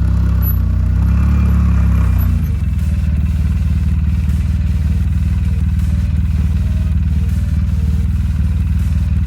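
A vehicle engine running steadily at a low pitch. Its note drops about two seconds in, then settles into an even run.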